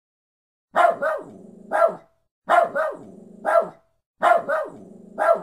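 A small terrier barking in three near-identical bouts about a second and a half apart. Each bout is two quick sharp barks, a quieter low sound held for a moment, then one more bark.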